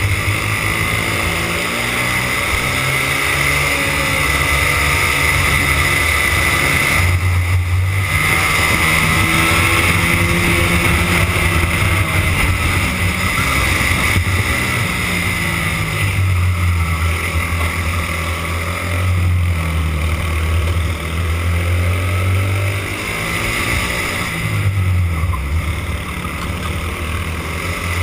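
Rental go-kart engine heard from on board, running hard at high revs with the pitch rising and falling as the kart goes through corners; the revs drop briefly twice, about a third of the way in and again near the end.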